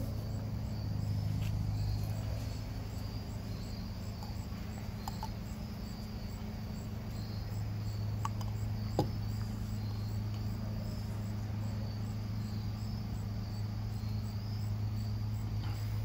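Crickets chirping in a steady high trill over a constant low hum, with a few light clicks, the sharpest about nine seconds in.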